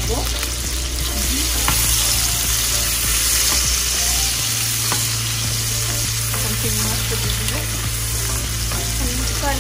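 Food sizzling steadily in hot oil in a cooking pan, with a few light knocks of a utensil against the pan about two, four and five seconds in.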